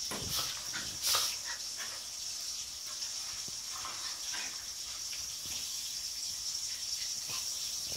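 Two dogs play-fighting on a tile floor: scuffling and brief dog noises, with the loudest, a sharp sound, about a second in.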